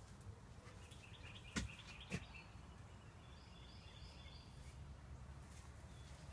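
Quiet outdoor ambience: a low background rumble with faint, quick bird chirps, and two brief clicks about a second and a half and two seconds in.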